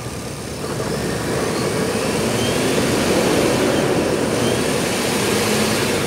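Car engine revved up from idle about a second in, held at raised revs, then easing back down near the end.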